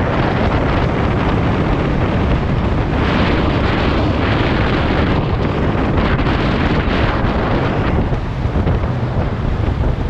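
Wind buffeting a GoPro Hero 7 Black's microphone while riding: a loud, steady rush of noise that swells in gusts a few times.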